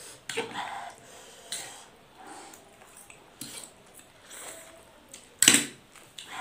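Spoon and fork scraping and clinking against plates while stir-fried instant noodles are eaten and slurped. A single short, loud sound comes about five and a half seconds in.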